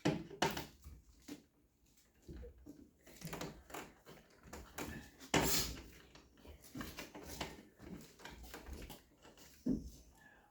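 Irregular knocks, clicks and scraping rustles of stiff electrical wires and a bulky smart switch being pushed and wrestled into a shallow wall junction box, with a sharper knock about halfway through.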